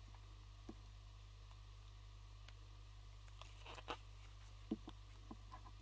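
Faint clicks and scratches of a small blade prying at the edge of a Sony Xperia XA2 Ultra's back cover, mostly in the second half, over a steady low hum.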